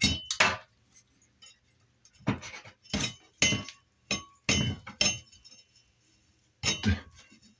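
Screwdriver knocking and clinking against hard fittings: a series of sharp knocks, some in quick pairs, each with a short metallic ring.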